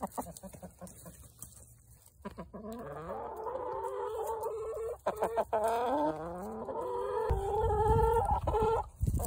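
Hens clucking and making drawn-out, wavering calls. The calls start about two seconds in and then carry on steadily, with a few sharp clicks. A loud low rumble comes in near the end.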